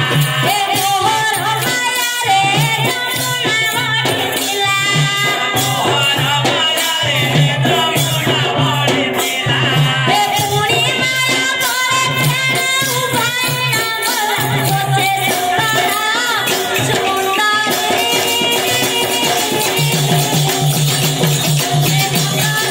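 Live folk music: a melodic voice or instrument wavering over continuous jingling hand percussion, played without pause.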